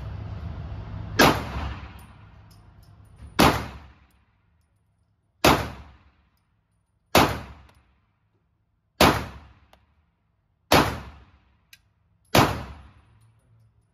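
Canik TTI Combat 9mm pistol fired seven times at a slow, steady pace, roughly one shot every two seconds, with Hornady Critical Defense 115-grain FTX rounds. Each shot rings out briefly in the enclosed concrete range.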